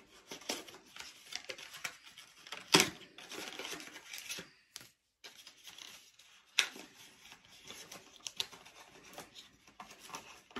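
A feeding bottle's packaging being torn open and handled: irregular crinkling, rustling and tearing with sharp clicks, the loudest a little under three seconds in and again about six and a half seconds in.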